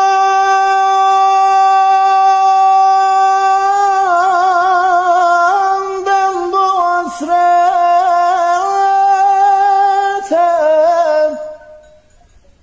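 A man singing the opening of an uzun hava (bozlak) without accompaniment: one long, high held note, then a wavering, heavily ornamented run that breaks off near the end.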